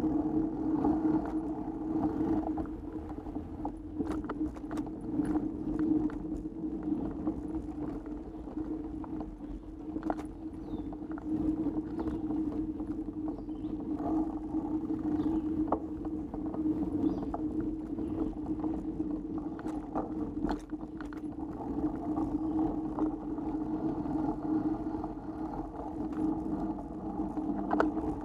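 Mountain bike rolling fast down a dirt singletrack: a steady rolling and wind rumble, with frequent sharp clicks and rattles from the bike as it goes over bumps and roots.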